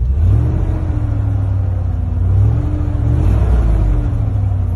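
Chevy Silverado pickup's engine running, revved lightly so its pitch rises and falls a few times over a steady low drone.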